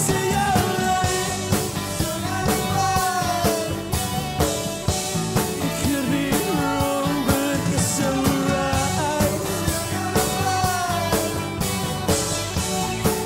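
Live rock band playing an instrumental passage: electric guitars, bass guitar and drum kit, with a steady drum beat and a melody line that slides up and down in pitch.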